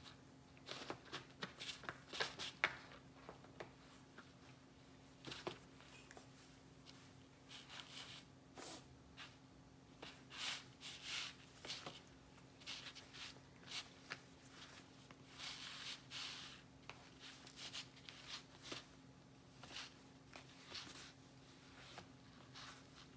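Faint, irregular scratching and rustling of a longhaired cat's claws and fur against rubber flip-flops and a tile floor as the cat rolls and paws at the sandals, coming in short clusters of scrapes.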